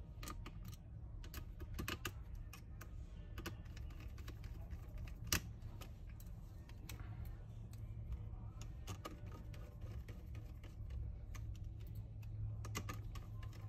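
Small screws being driven into a laptop's metal display hinges with a screwdriver: irregular light clicks and ticks of the tool and screws, one sharper click about five seconds in, over a low steady hum.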